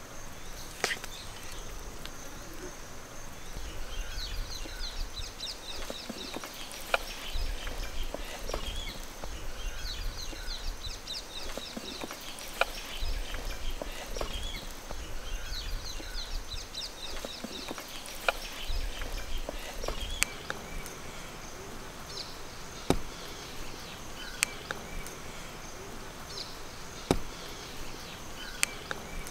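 Outdoor ambience: a steady high insect drone, with several runs of rapid chirping and scattered sharp clicks over it.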